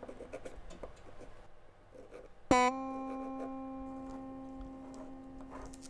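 Guitar: a single note struck sharply about two and a half seconds in, then left to ring and slowly fade. Soft clicks and rustles come before it.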